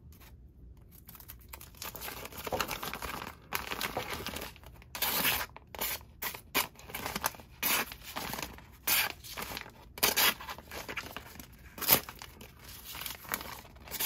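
Knife blade of a Sunbird multi-tool slicing through folded paper: a run of short, irregular cutting and tearing strokes, with the paper rustling as it is handled. The loudest stroke comes near the end.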